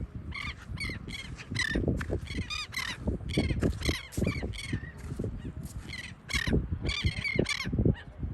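A flock of royal terns calling over and over, harsh grating calls overlapping one another, over a low rumble.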